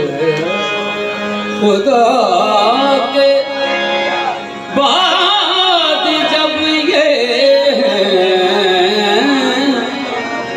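Qawwali: men singing a long, ornamented devotional line in Urdu/Punjabi over harmoniums. The sound dips briefly about four and a half seconds in, then comes back fuller and brighter with several voices and the harmoniums together.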